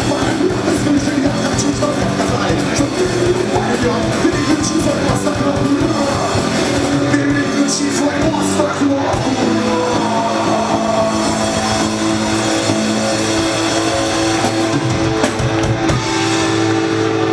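Punk rock band playing live: distorted electric guitars and a drum kit driving a fast song.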